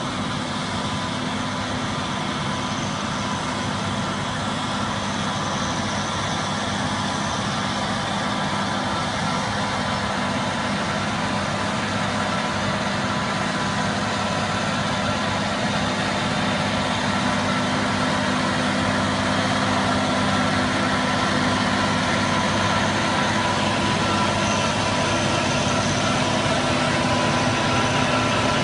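John Deere tractor engine running steadily under load while driving a PTO-powered spading machine and power harrow, with a steady high whine over the engine. It grows gradually louder toward the end as the tractor comes close.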